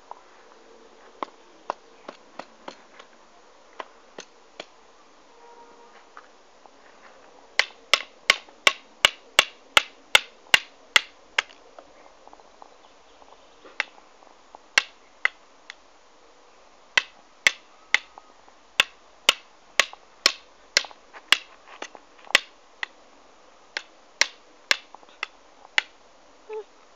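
A series of short, sharp clicks: a few scattered ones at first, then quick runs of about two to three a second, with pauses between the runs.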